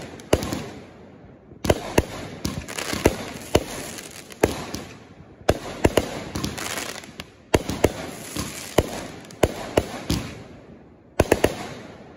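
Aerial fireworks bursting overhead: many sharp bangs in quick succession, with four loud spells of crackling hiss, the last starting near the end.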